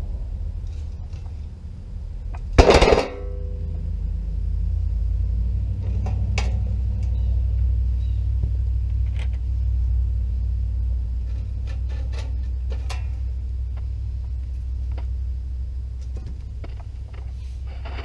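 Wood fire burning in a homemade metal camp stove, heard as a low steady rumble with scattered faint crackles. About three seconds in there is one loud metal clank with a short ring.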